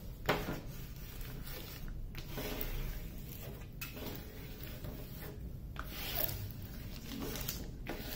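Hands and a long flat tool rubbing and pressing across a wrinkled diamond painting canvas to flatten it: a series of dry rustling swishes and crinkles, with short pauses between strokes.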